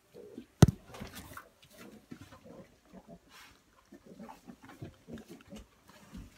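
Pygmy goats and their kids moving about close by, with small scattered animal noises and shuffling. A single sharp knock about half a second in is the loudest sound.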